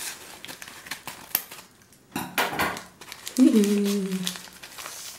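Scissors snipping through brown paper wrapping, with sharp clicks of the blades and the paper crinkling as it is cut and pulled open. A woman gives a short hum with a falling pitch about three and a half seconds in.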